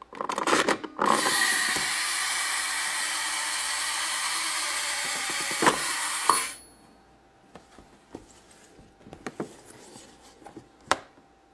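Continuous rough rubbing, scraping noise from handling the toy's packaging for about six seconds, cutting off suddenly, then faint scattered taps and clicks.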